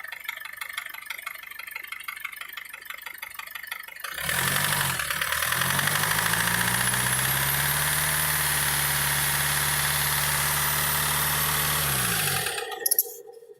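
BMW M47TU four-cylinder diesel engine starting about four seconds in, then idling steadily. It shuts off with falling pitch shortly before the end, followed by a couple of sharp clicks. The engine is the one the owner is checking for a knock.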